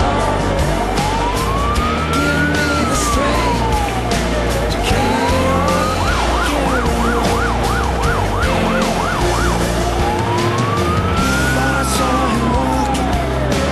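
Fire engine siren sounding a slow wail that rises and falls over about four seconds, switching for a few seconds midway to a fast yelp of about three cycles a second, then back to the wail. The truck's engine drones underneath, heard from inside the cab.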